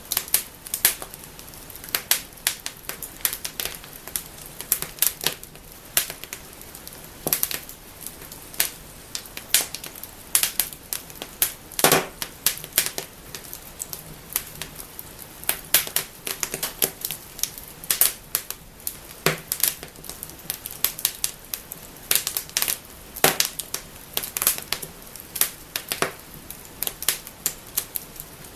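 Wood fire in a fireplace crackling and snapping: irregular sharp pops, several a second, some louder, over a low hiss of burning.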